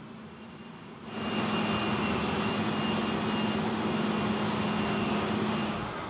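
Heavy tracked rock-cutting machine's engine and cutting drum grinding through hard stone: a steady, noisy drone with a low hum, turning sharply louder about a second in.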